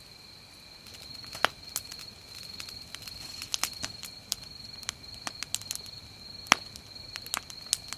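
Wood campfire of thick split logs over charcoal crackling, with irregular sharp pops, the fire freshly caught. A steady high insect trill runs behind it.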